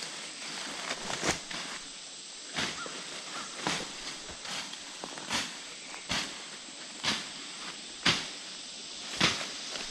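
Footsteps rustling and crunching through dense kudzu and undergrowth, about one step a second, with leaves brushing against legs.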